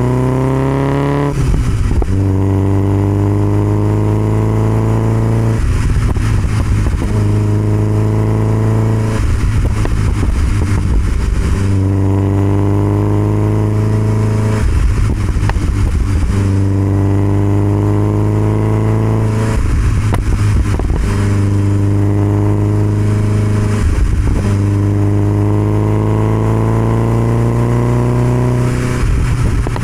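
1969 Alfa Romeo Spider 1750's twin-cam four-cylinder engine running through an Alfaholics sports exhaust while driving. The engine note climbs steadily in stretches of a few seconds, each broken by a brief crackling lull before the drone picks up again.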